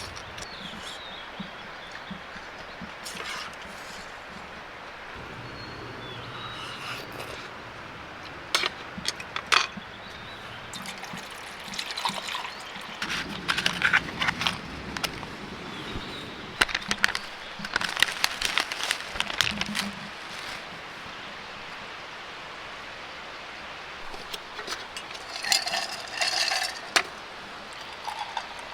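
Mountain stream flowing steadily, with scattered sharp clicks and clatters of things being handled, in clusters partway through and again near the end.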